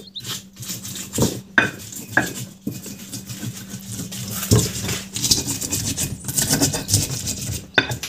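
A pestle crushing and grinding fresh chillies and shallots in a cobek mortar, making irregular knocks and scraping as the spice paste is pounded.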